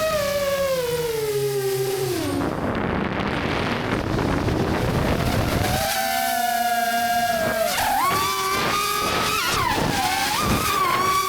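5-inch Grinderino FPV quadcopter's brushless motors and propellers whining, the pitch falling over the first two seconds as the throttle comes off. For a few seconds there is only a rush of air noise, then the whine comes back and climbs, shifting quickly up and down with throttle punches.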